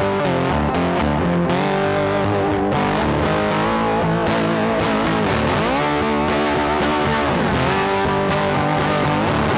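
Background instrumental music led by guitar, at a steady level, with notes that bend in pitch.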